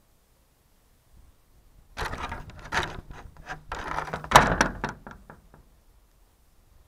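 Scraping, knocking and clattering of a blue plastic object pushing against an upside-down toy quadcopter on a roof, picked up by the quadcopter's own camera microphone. It begins about two seconds in with a run of scrapes and sharp knocks, the loudest knock about halfway through, and dies away near the end.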